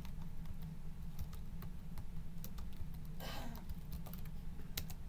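Keystrokes on a computer keyboard: irregular clicking taps as a terminal command is typed, over a steady low hum. A short rushing noise comes a little past the middle.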